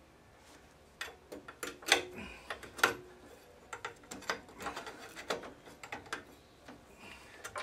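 Irregular metal clicks, knocks and scraping from an old outboard's corroded tiller and throttle linkage being forced back and forth, starting about a second in, with two sharp clacks about two and three seconds in. The linkage is binding, which the mechanic takes for a bunch of corrosion underneath hitting the side.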